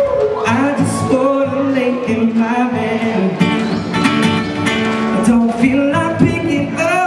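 Live acoustic guitar played with a singing voice over it.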